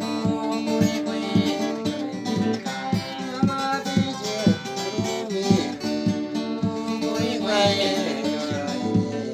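Music: a guitar strummed in a steady rhythm.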